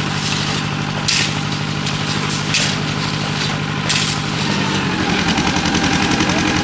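Concrete mixer's engine running steadily, with a few sharp clanks about a second and a half apart. About five seconds in the engine note rises and pulses as it runs harder.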